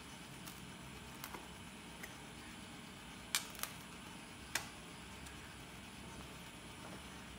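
Serrated knife slicing through a pizza on a plastic cutting board, giving a few sharp clicks as the blade knocks against the board; the three loudest come close together between about three and four and a half seconds in.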